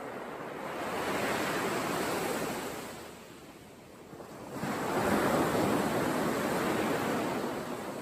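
Surf washing onto a sandy beach, a steady rushing noise that swells and eases. It drops away a little past three seconds in, then surges back louder about a second and a half later.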